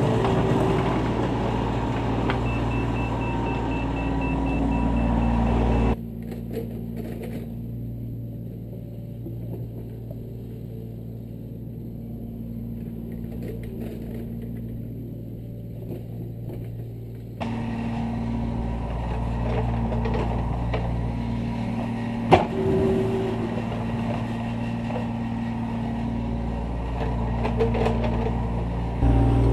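Kubota U25 mini excavator's diesel engine running steadily while it works the soil, much quieter for a stretch in the middle. A single sharp knock a little past twenty seconds.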